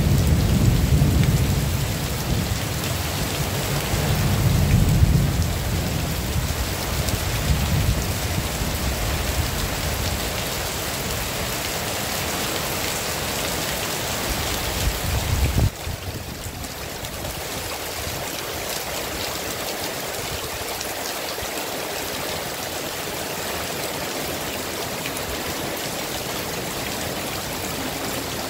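Heavy rain falling steadily, with a deep rumble of thunder in the first half that swells about five seconds in and then stops suddenly a little past the middle. After that, only the even hiss of the downpour remains.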